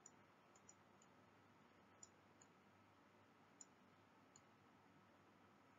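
Near silence: faint room hiss with a few scattered, very faint clicks.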